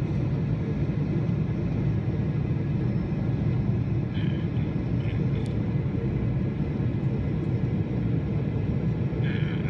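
Steady low rumble of a Boeing 777-300's turbofan engines and rushing airflow, heard inside the passenger cabin in flight.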